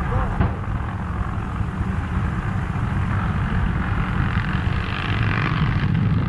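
Continuous low rumbling from a pipeline trench blast, a long line of buried charges going off in quick succession.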